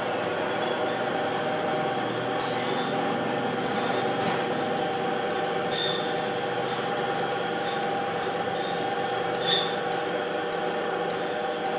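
Stick (arc) welding on a metal pipe: a steady crackling hiss with a constant whine under it, broken by irregular sharp pops from the arc.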